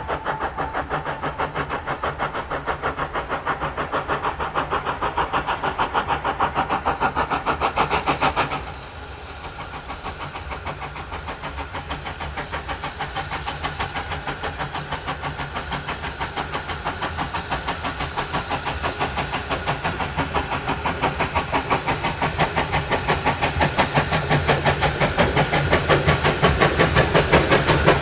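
SECR O1 Class 0-6-0 steam locomotive working under steam, its exhaust beating in a fast, even rhythm as it approaches. About eight seconds in the beats suddenly become quieter, then grow steadily louder as the engine draws near.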